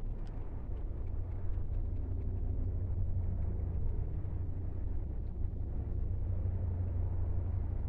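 Steady low outdoor rumble with no clear events.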